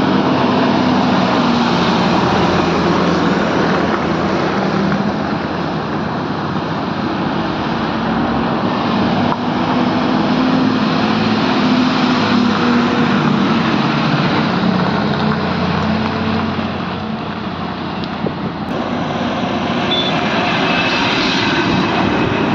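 Highway traffic passing close by: heavy diesel trucks and cars, with a continuous din of engines and tyre noise and an engine drone that rises and falls as each truck goes past.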